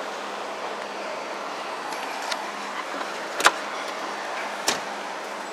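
Steady engine and road noise of a car heard from inside the cabin, with two sharp clicks about a second apart, the first near the middle and the louder.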